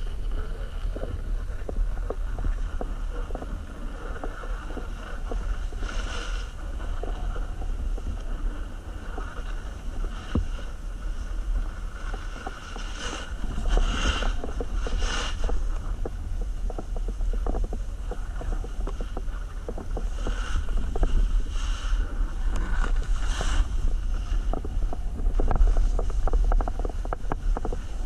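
Wind rumbling on a skier's helmet or body camera microphone while skiing downhill, with the skis hissing and scraping over the snow in several short clusters.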